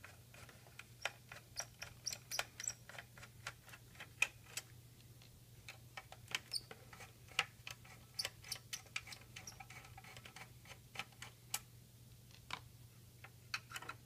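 Many light, irregular clicks and ticks of a small screwdriver working screws out of a BMW CD53 car radio's sheet-metal casing, with the unit being handled and turned, over a faint steady low hum.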